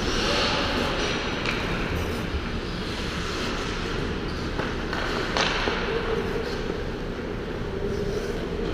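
Ice hockey rink sound: skate blades scraping and hissing on the ice in short spells, with a few sharp knocks of pucks and sticks, over a steady low hum.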